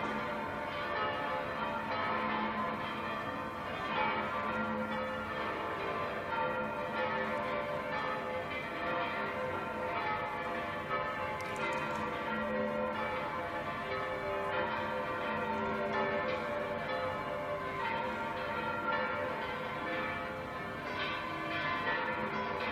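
Several church bells ringing together in a continuous peal, fresh strikes about every second overlapping the long ringing of the ones before.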